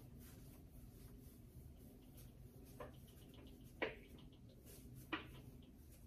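Felt whiteboard eraser wiping a whiteboard: mostly faint, with three short scuffs of the eraser on the board, the loudest about four seconds in, over low room hum.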